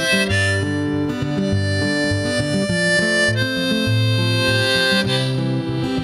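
Harmonica solo played on a neck-rack harmonica over acoustic guitar accompaniment, mostly long held notes that change pitch in steps.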